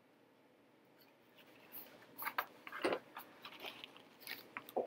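Oracle cards being thumbed and shuffled through by hand: a string of soft, crisp clicks and rustles of card stock, beginning about two seconds in.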